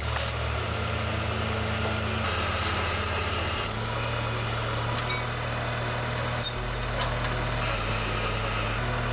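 Engine of a hydraulic tree-trimming machine running steadily.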